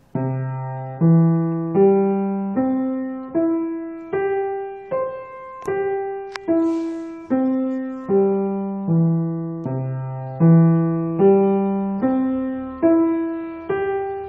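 Piano playing a slow broken-chord arpeggio exercise, one note at a time about every three-quarters of a second, each note left to ring and fade. The notes climb in pitch, then start again from the low notes about two-thirds of the way through and climb once more.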